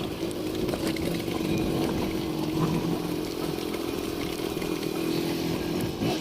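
Motorcycle engine running at a steady pitch.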